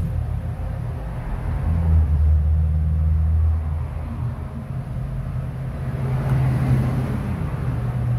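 Low rumble of a motor vehicle engine running nearby, a steady low hum that swells about two seconds in and again around six to seven seconds.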